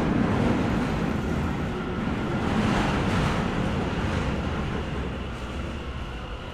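Street traffic noise: a vehicle's rumble rises and passes about three seconds in, then fades back to the city background.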